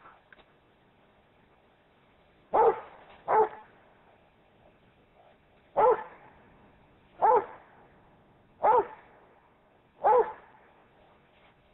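Rhodesian Ridgeback barking six times, single barks spaced about one to two seconds apart, the first two close together.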